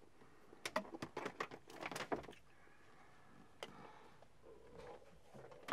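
A quick irregular run of light clicks and knocks lasting about two seconds, then one more click a second or so later: handling noise from work on a car's stripped interior.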